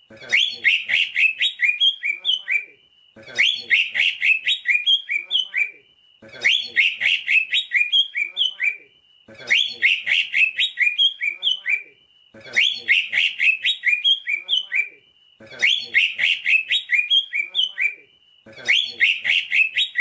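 Green leafbird (cucak ijo) song: a rapid phrase of quick, high chattering notes repeated about every three seconds with short pauses between, each phrase the same.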